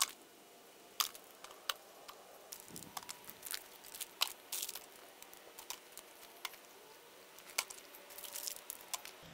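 Irregular crunching and crackling: footsteps on dry leaf litter and rubble, and plastic trash being handled and picked up.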